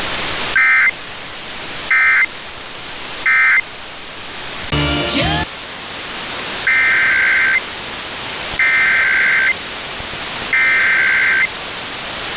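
Emergency Alert System digital data bursts over steady radio hiss. First come three short end-of-message bursts. After a brief pitched blip about five seconds in, three longer header bursts follow, opening the next alert.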